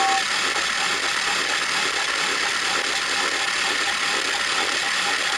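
Battery-powered toy James engine running: its small electric motor and plastic gears whirr steadily, with a faint regular clicking.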